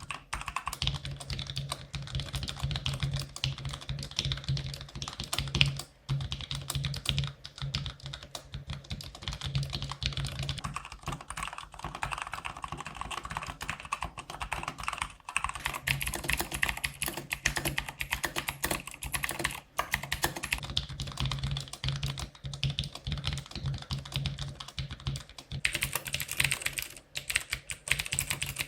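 Mechanical keyboard being typed on fast, a dense, unbroken run of key clicks. The clicks turn brighter about halfway through.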